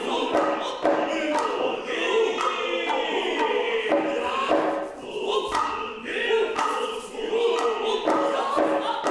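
Noh music: the chorus chants in unison over the sharp, repeated strikes of the hayashi drums.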